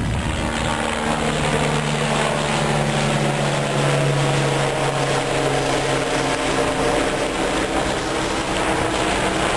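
Helicopter flying past the airfield: steady rotor and engine sound.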